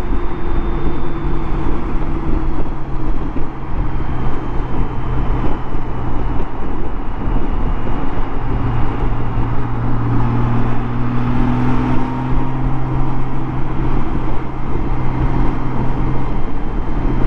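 Honda Gold Wing GL1800's flat-six engine droning steadily at freeway cruise under heavy wind and road noise, heard from a microphone inside the rider's helmet.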